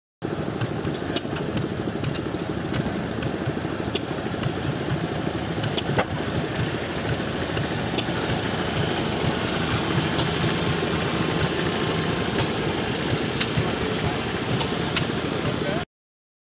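Small Farmall tractor engine running steadily as the tractor is driven, with occasional sharp clicks.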